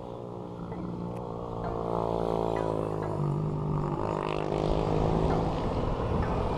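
Road traffic approaching round a bend: the engines of a motorcycle and cars hum, shifting in pitch and growing louder through the first few seconds.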